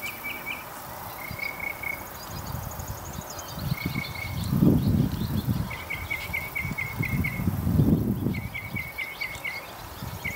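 Outdoor birdsong: a bird repeats short trilled phrases of quick high notes every second or two, with a fainter, higher trill above it. Two low, muffled rumbling swells, the loudest sounds here, come about halfway through and again near eight seconds in.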